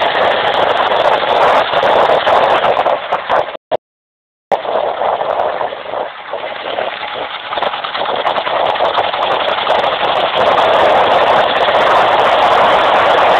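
Royal Enfield Bullet single-cylinder motorcycle running while being ridden, heard as a loud, steady rushing noise with no clear engine beat. The sound drops out for about a second, roughly three and a half seconds in.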